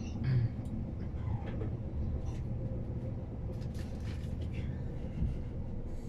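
Passenger train running, heard from inside the carriage: a steady low rumble with a few faint clicks and knocks.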